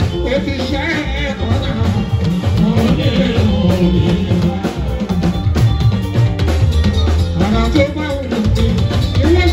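Live band music: electric guitars, bass guitar and drums playing, with a man singing into a microphone.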